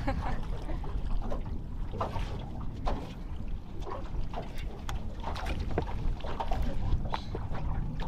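Choppy water slapping against a small aluminium boat's hull, with wind rumbling on the microphone and scattered sharp clicks and knocks.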